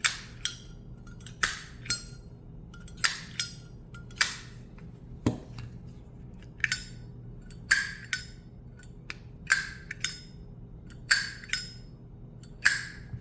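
Metal Zippo lighter lids flicked open and snapped shut over and over, a dozen or so sharp clicks, many in pairs about half a second apart, some leaving a short metallic ring.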